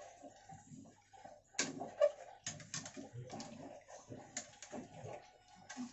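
Metal ladle stirring rice in a thin masala liquid in an aluminium pot, knocking and clinking irregularly against the pot's sides and bottom.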